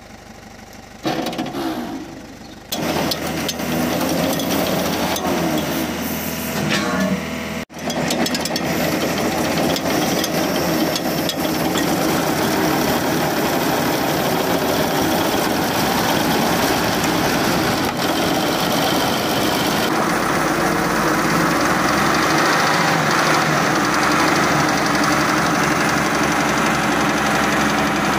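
Volvo BM 861 articulated dump truck's diesel engine being cranked and catching about three seconds in, then running steadily: a first start after two years standing.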